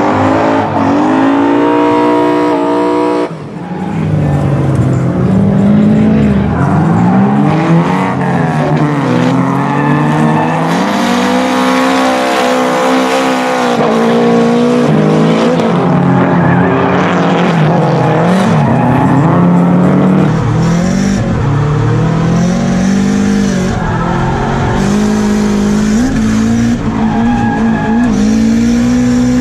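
Nissan S13 drift car at full drift: the engine revs rise and fall again and again under throttle while the rear tyres squeal and skid. The sound briefly drops away about three seconds in.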